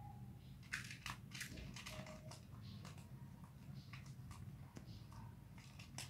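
Parakeet chicks making raspy begging calls while being hand-fed: an irregular string of short, scratchy cheeps, with a few faint short peeps between them.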